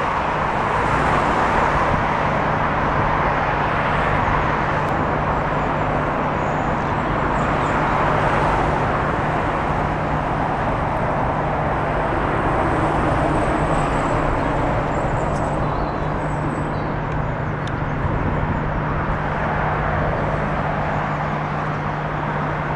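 Steady road traffic on a suspension bridge's road deck: cars passing close by beside the footway, the noise swelling and easing as vehicles go by.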